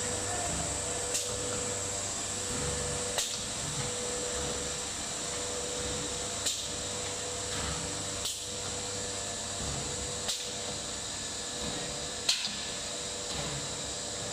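Automatic nesting CNC router machining a particleboard panel: a steady whine runs throughout, with a sharp click or knock every two seconds or so, the loudest near the end.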